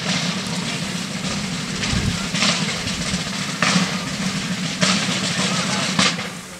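Military field drums beating a continuous roll, with a louder stroke about every second.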